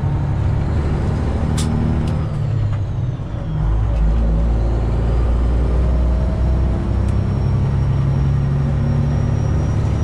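Freightliner Classic XL semi truck's Detroit Diesel 12.7 engine running under way, heard inside the cab. About three seconds in the sound dips briefly, then a deeper low rumble comes in for about three seconds before it settles back.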